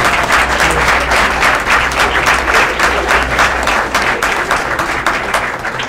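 A room full of people applauding, many hands clapping at once, thinning out near the end.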